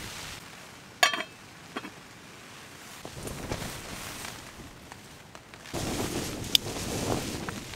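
A Trangia cook set's frying-pan lid is set down on the aluminium pot with a sharp metallic clink that rings briefly, about a second in. Rustling and handling noises follow as food is laid out, with another sharp click near the end.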